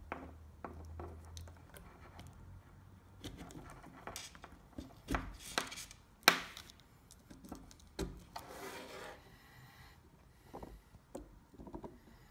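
Handling noise of a hard-case LiPo battery pack and its charge leads: scattered taps, rubbing and clicks as the bullet plugs are pushed into the pack's terminals, with the sharpest click about six seconds in.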